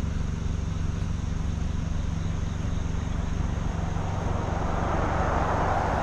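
Car engine running with a steady low hum; a rushing noise grows from about four seconds in.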